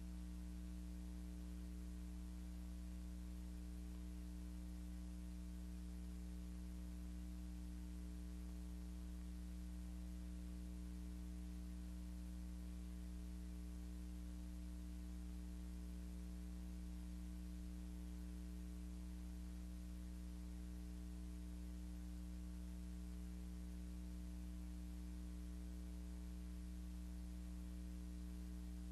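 Steady electrical hum with a faint hiss, unchanging throughout; no sound from the pictured scene.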